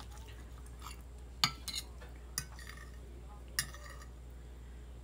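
A metal fork clinking and scraping against a dinner plate several times while cutting food, the sharpest clink about a second and a half in, over a low steady hum.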